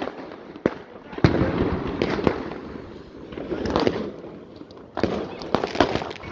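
Many fireworks and firecrackers going off at once: irregular sharp bangs, the loudest about a second in, over a constant din of more distant explosions.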